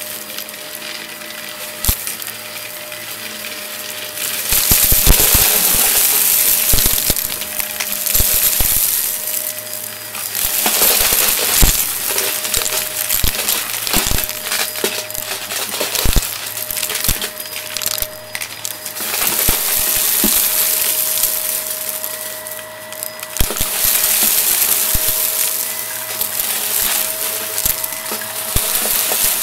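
Shark Navigator upright vacuum running with its brush roll spinning, crunching and rattling as it sucks small hard debris up off a shaggy rug. Loud crackling surges, with sharp clicks of bits striking inside, come and go over a steady motor whine as it is pushed back and forth through the pile.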